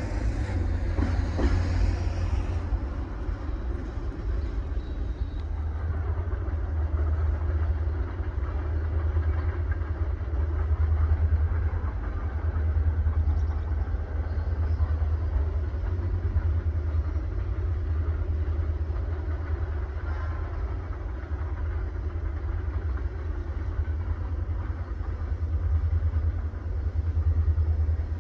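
A freight train's covered hopper cars roll past for about the first two seconds, steel wheels rumbling on the rails. After that comes a steady low rumble as a distant freight train approaches along the track.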